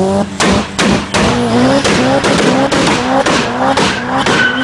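Car engine stuttering hard at launch, cutting out and catching again about three times a second with a sharp crack at each cut, a 'łububub' sound, while the tyres spin.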